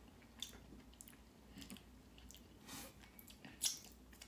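A person chewing a breaded jalapeño popper filled with cream cheese: faint scattered mouth clicks and soft crunches, with one louder click near the end.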